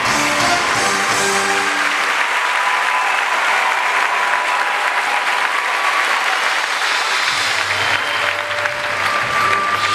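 Audience applauding over the show's music. The clapping is strongest in the first couple of seconds, and a low bass line joins the music about seven seconds in.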